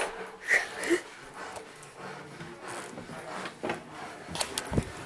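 Handling noise from a handheld camera being moved about: scattered light knocks and rustles, with a low thump near the end.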